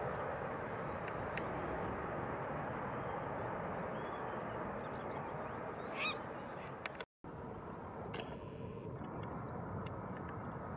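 Boeing 787 jet engines at takeoff thrust, heard from a distance as a steady rumble that slowly fades as the airliner rolls and lifts off. A short honking call comes about six seconds in, and the sound cuts out for a moment about seven seconds in.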